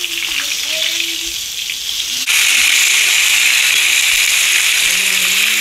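Salmon steaks sizzling in a thin layer of oil in a skillet. The hiss jumps louder about two seconds in as a steak is flipped onto the hot pan.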